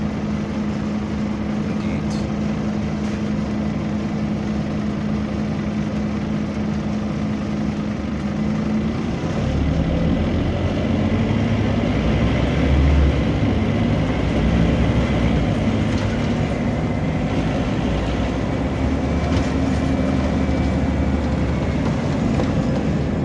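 Scania bus engine and cooling fan heard from inside the passenger saloon: a steady hum for the first eight or nine seconds, then the running note gets louder and deeper about nine seconds in and stays so.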